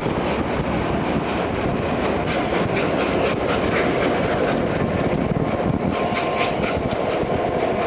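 Steam-hauled passenger train led by LNER A4 locomotive 60009 Union of South Africa rolling past: a steady rumble from the coaches, with irregular sharp clicks from the wheels. A faint steady whine joins near the end.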